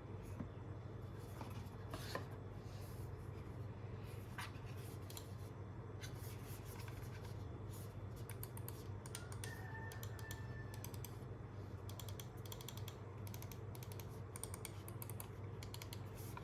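Press Play Nova Ergo gaming mouse buttons clicking: scattered single clicks at first, then quick runs of clicks from about the middle on, over a steady low hum.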